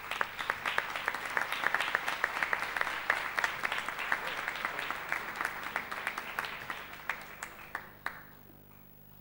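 Applause from a small group, many hands clapping, which tapers off and stops about eight seconds in.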